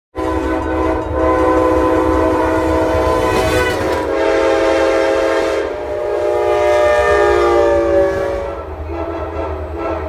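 Locomotive multi-chime air horn sounding long held chords. The chord shifts slightly lower about four and again about six seconds in, then fades near the end, leaving the low rumble of the train.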